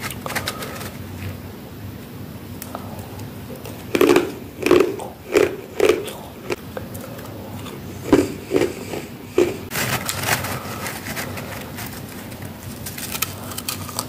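Hands pressing into and breaking humidifier freezer frost heaped on a metal tray: a run of about five short crunches about four seconds in, three more around eight seconds, then finer crackling of the frost being broken apart.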